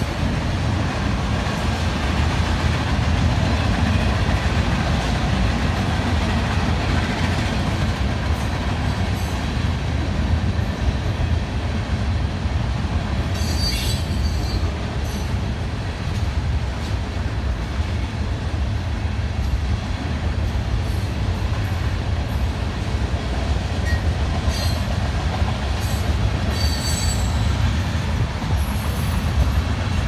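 Freight train cars rolling past with a steady rumble of steel wheels on rail. Brief high wheel squeals come about halfway through and again near the end.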